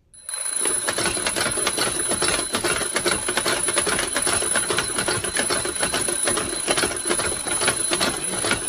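Alarm bell ringing continuously as a rapid metallic clatter with a steady high ring, starting just after a short silence at the very beginning: a wake-up alarm sounded close to a sleeper.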